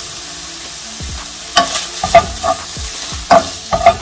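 Drained ground chicken sizzling steadily in a nonstick skillet. From about a second and a half in, a wooden spoon stirs it, knocking sharply against the pan several times over the sizzle.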